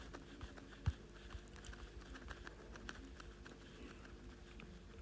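Faint, irregular light taps and knocks, with one louder thump about a second in, over a low steady hum.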